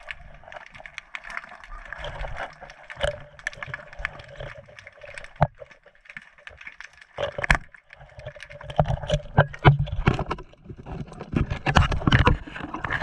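Underwater sound picked up by a GoPro in its housing while freediving: a muffled water rush with scattered clicks and knocks. It grows louder and busier with splashing water in the last few seconds as the diver nears the surface.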